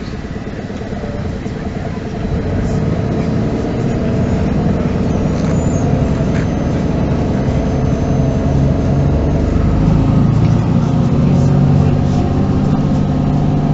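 MAN NG 313 articulated city bus's diesel engine heard from inside the moving bus, with a steady low drone that grows louder about two seconds in and again near the end as the engine pulls harder. A few short clicks and rattles come through.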